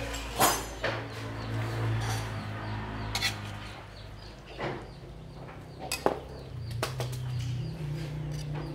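A metal ladle clinking and scraping against a metal wok while food is served onto a plate, with about five separate sharp clinks. A low steady hum runs underneath.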